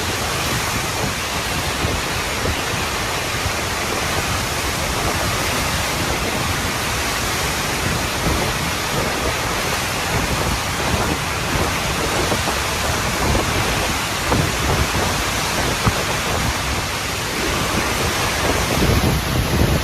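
Hurricane wind and driving rain: a loud, steady rushing noise with low rumbling gusts.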